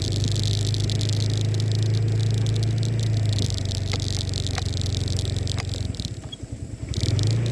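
A motorcycle engine running at a steady speed, with rattling hiss over it. The engine note dips away for about a second near the end, then picks up again.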